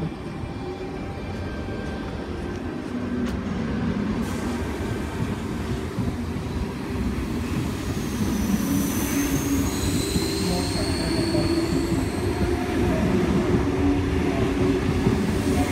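Sydney Trains Tangara double-deck electric train pulling out of the platform, its motors and wheels running with a steady rumble that grows gradually louder. Thin high squeals glide in about halfway through.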